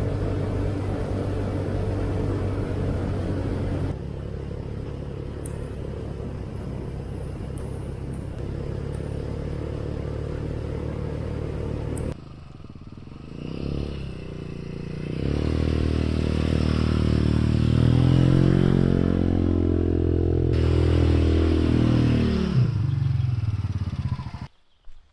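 A motor vehicle's engine running while on the move, its pitch rising and falling with changes of speed in the later part, in several clips that cut off abruptly.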